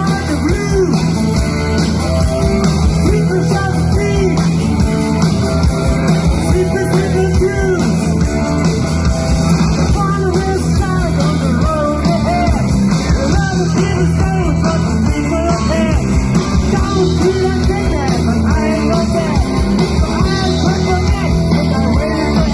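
Live rock music: a band playing a song with a singing voice over guitar, bass and drums, loud and continuous.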